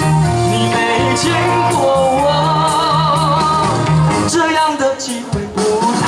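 Live singing over the backing music of a slow pop song. A long note with vibrato is held about halfway through.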